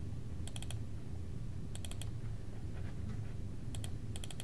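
Computer mouse button clicking in quick clusters of clicks, about four times, as folders are double-clicked open in a file browser. A faint steady low hum sits underneath.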